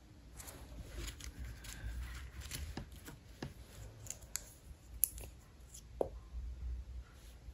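Small clicks and light taps of fingers and long nails handling soft plastic Gel X nail tips, with a sharper click about five seconds in and another about a second later.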